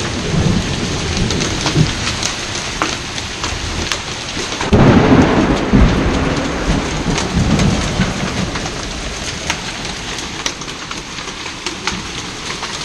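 Hailstorm: heavy rain and hail falling, a steady hiss dotted with many sharp ticks of hailstones. Thunder rumbles in abruptly about five seconds in, the loudest part, then slowly dies away.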